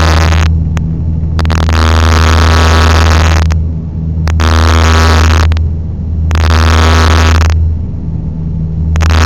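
Aircraft engines running at takeoff power with a loud, steady low drone. Noisy bursts of wind on the microphone come and go about every two seconds.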